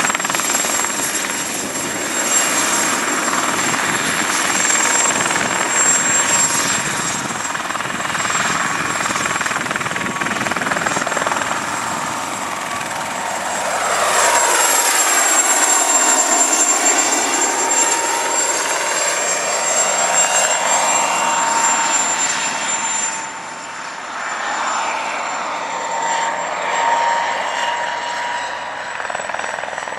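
Mosquito XET ultralight helicopter running steadily, its engine and rotor noise carrying a thin high whine. Around the middle the sound swells and sweeps in tone as the helicopter moves past, then it drops a little in level about three-quarters of the way through.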